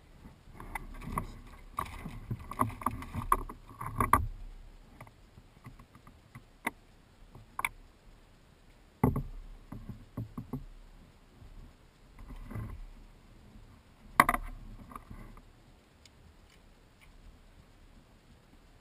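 Knocks, taps and rustles of a person moving and handling fishing gear in a canoe: a busy cluster in the first four seconds, then single sharp clicks and knocks every few seconds.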